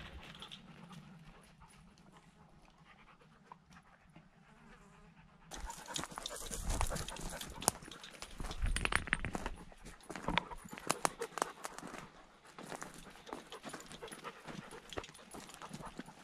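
Chesapeake Bay retrievers panting as they trot along a dry dirt trail. From about five seconds in, it turns louder, with uneven crunching footsteps on dry ground and gravel.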